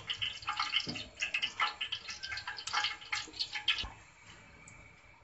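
Metal spoon stirring wet gram-flour and yogurt batter in a bowl just after water has been poured in, making irregular wet clicks and drips. The clicking stops about four seconds in.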